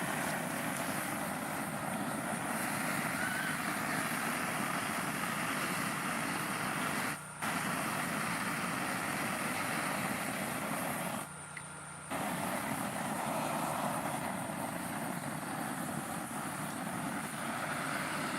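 Steady rushing outdoor background noise that cuts out abruptly twice: briefly about 7 seconds in, and for most of a second a little past the middle.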